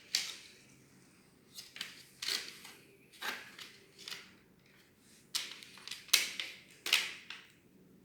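Packaging of a boxed exhaust fan being handled and opened: an irregular run of sharp rustles, scrapes and knocks, several louder ones in the second half.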